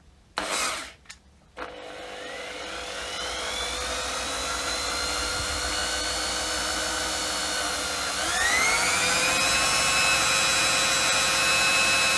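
A short hiss, then an electric power tool's motor starts and spins up to a steady whine. About eight seconds in it speeds up to a higher, louder whine and holds there.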